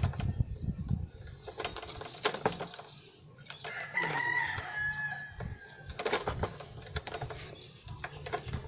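A knife scraping and nicking the insulation off the end of an electrical wire, with short irregular clicks and scrapes. A rooster crows once in the background about four seconds in.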